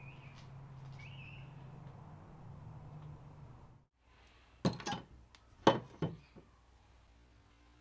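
A heavy steel meat cleaver knocking on weathered wooden boards as a hand lays it down: two sharp knocks about a second apart, each followed by a smaller knock. Before that, a low steady hum that cuts off just before halfway.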